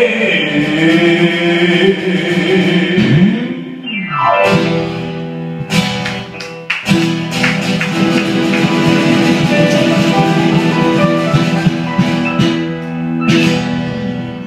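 Live acoustic guitar and keyboard holding out the closing chords of a rock song, with a held male sung note at first. About four seconds in there is a quick falling glide. Later strums ring out and fade toward the end.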